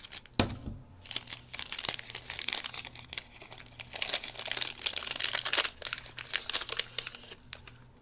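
Paper wrapping crinkling, rustling and tearing as a small gift packet is cut with scissors and pulled open by hand, with a sharp click about half a second in.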